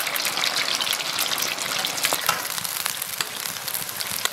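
Marinated, egg-white-coated pork strips deep-frying in hot oil in a wok: a dense, steady crackle and sizzle as the meat goes in and is stirred with a metal ladle.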